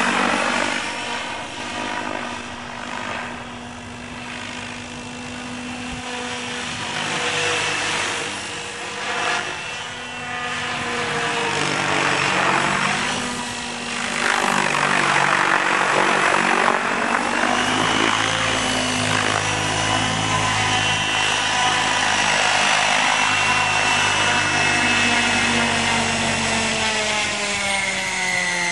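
Align T-REX 800 radio-controlled helicopter flying: the whine and blade noise of its main and tail rotors rise and fall in pitch as it maneuvers, then run steadier, and drop in pitch near the end as the rotors slow on the ground.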